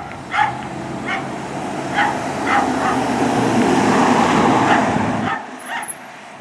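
A dog barks repeatedly, short barks about once a second, while a Ford ambulance van drives past. The van's engine and tyre noise swells to the loudest point about four seconds in, then drops away suddenly.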